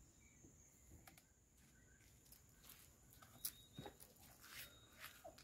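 Near silence: faint scattered clicks and taps over a faint steady high-pitched tone.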